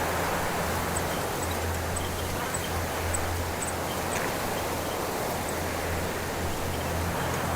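Wind blowing through a cypress bush, a steady rushing hiss, with small birds giving short, high, faint chirps now and then. A steady low hum runs underneath.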